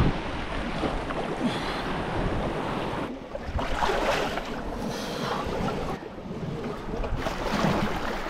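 Shallow seawater sloshing and washing around a person wading along a rock ledge, with small waves surging against the rocks and wind buffeting the microphone.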